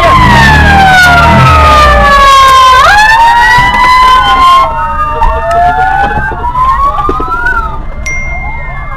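Several fire-rescue vehicle sirens wailing at once, their pitches sliding up and down across each other. The loudest cuts off about halfway through, and fainter sirens keep wailing.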